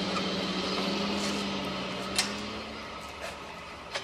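A steady machine hum with a hiss that eases off after about two and a half seconds, with two sharp clicks, one about two seconds in and one near the end.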